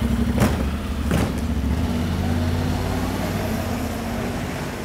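Motorcycle engine pulling away at low revs and riding off, fading slowly as it moves away. Two short clicks come about half a second and a second in.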